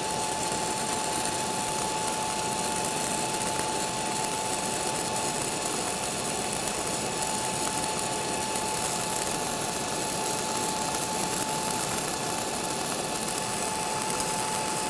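6010 stick electrode arc welding a downhill root pass in beveled steel plate at about 80–85 amps: a steady, harsh crackle with no breaks, a thin high steady tone beneath it.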